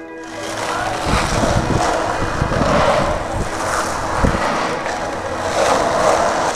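Skateboard wheels rolling on smooth concrete, a steady hiss that swells and eases, with a couple of low knocks from the board.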